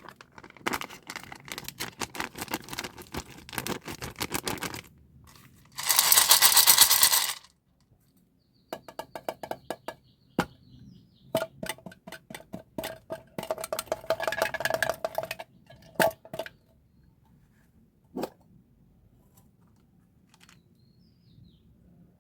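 Glossy candy boxes and their packaging handled close to the microphone: rapid crackling and clicking, a loud crinkling rustle about six seconds in, then scattered clicks and taps that thin out to a few isolated ticks after about sixteen seconds.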